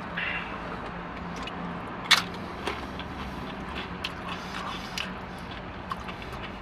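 Eating sounds: a plastic fork clicking and scraping in a takeout bowl, and chewing, over a steady low hum in a car's cabin. A sharper click comes about two seconds in.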